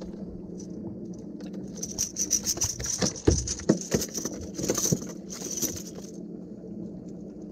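A snapper flopping on a boat deck while it is unhooked with pliers: irregular slaps and knocks with the metal of hooks and pliers rattling, busiest from about two seconds in to about six, over a steady low hum.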